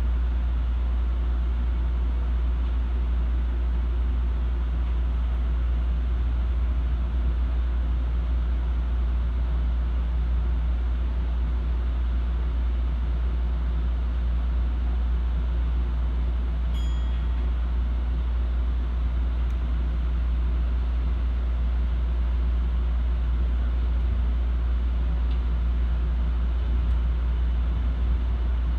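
Osaka Monorail train running along its guideway, heard from inside the front cab: a steady low rumble of the rubber-tyred straddle-type monorail at speed. A brief high beep sounds about halfway through.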